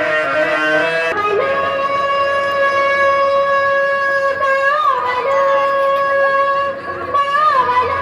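Music led by a reedy wind instrument: a quick run of notes, then a long held note from about a second in, ornamented with short pitch bends about five and seven and a half seconds in.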